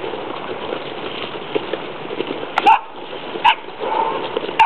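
Terrier puppies eating in a bunch: a steady busy clatter of small clicks and scrabbling, broken three times, in the second half, by short sharp puppy yips.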